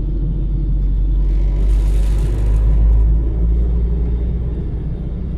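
Vehicle driving on a paved road, heard from inside its cab: a steady low engine and road rumble that swells a little two to three seconds in.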